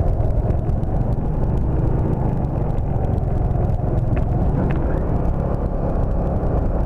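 Motor scooter under way: a steady engine drone mixed with heavy wind rush.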